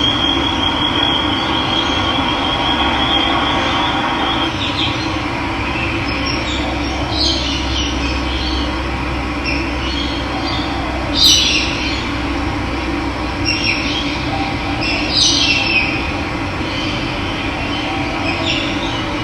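Steady rush of running water with birds calling over it: a high, even trill for the first four seconds, then short calls every few seconds, the loudest about eleven seconds in.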